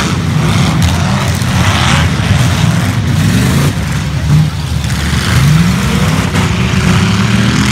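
Engines of several enduro race cars running together as they lap the track, one climbing in pitch as it accelerates about five seconds in and another near the end.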